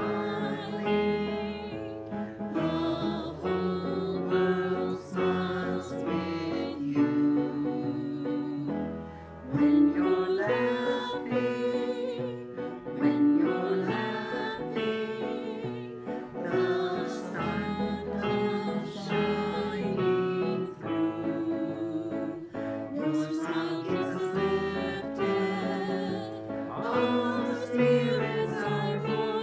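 A mixed group of men's and women's voices singing a song together, with instrumental accompaniment.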